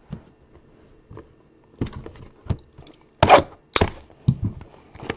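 Trading cards and their packaging handled on a tabletop: an irregular run of knocks and clicks, the loudest a short noisy burst a little after three seconds in.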